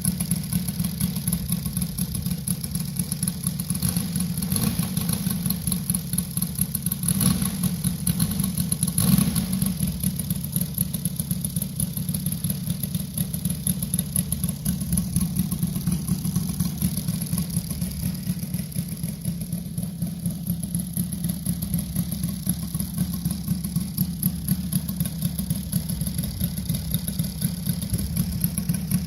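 Saito FG-60R3 three-cylinder four-stroke petrol radial model-aircraft engine running steadily during its final running-in, with brief rises in level about seven and nine seconds in.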